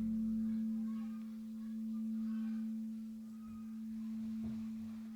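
A bell ringing out after being struck: a single low, steady hum that swells and fades slowly, about every two seconds.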